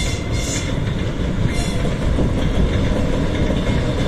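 Freight train with an electric locomotive rolling past: a steady low rumble of wheels on the rails.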